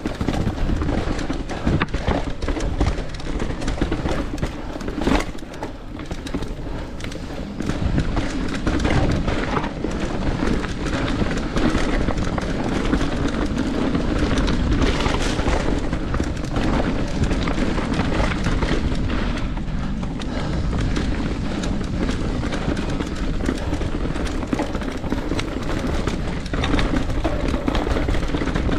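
Mountain bike, a Santa Cruz Nomad, descending a rocky trail: constant rumble of wind and tyres on dirt, with frequent clattering knocks as the bike rattles over rocks and roots.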